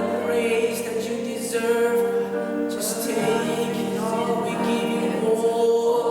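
Voices singing a worship song, holding long notes.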